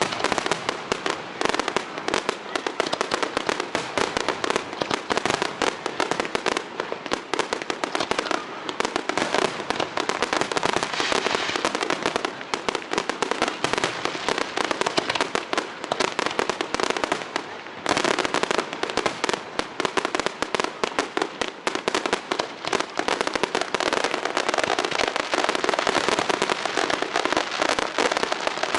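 A fireworks display: a dense, rapid run of crackling pops and bangs, easing for a moment a little past halfway before picking up again.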